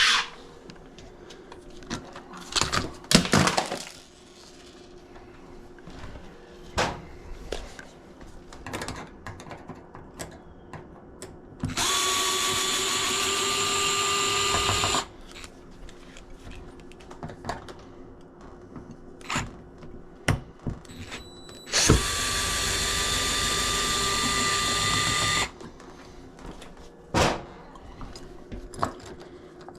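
Power drill running steadily at an even pitch in two runs of about three seconds each, one near the middle and one about two-thirds through, with scattered clicks and knocks of hand work on the door lock in between.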